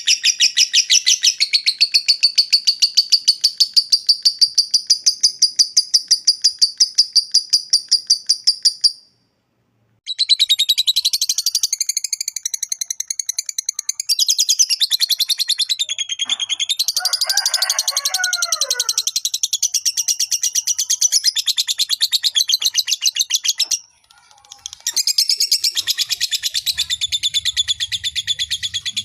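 Lovebird singing its long 'ngekek' chatter: very rapid, shrill repeated notes strung together in long unbroken runs. The runs break off briefly about a third of the way in and again near the end.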